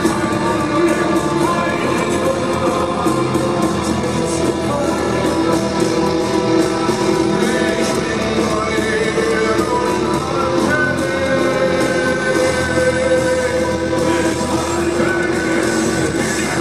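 Rock music with a voice singing over guitar and sustained instrumental tones, played at a steady level throughout.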